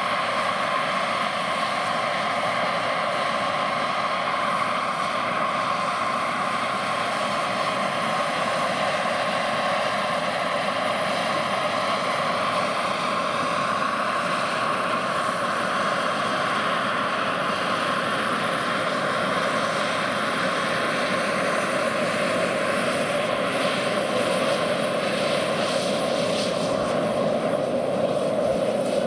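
Scale model MH-53 helicopter's JetCat PHT3 turbine running with its main and tail rotors turning: a steady whine of several held tones as the model flies low and sets down on the grass. It grows a little louder near the end.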